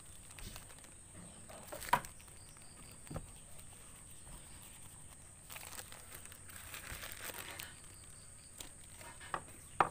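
Plastic bag crinkling and rustling as talc powder is poured out of it into a plastic tub, with a couple of sharp taps, about two seconds in and near the end.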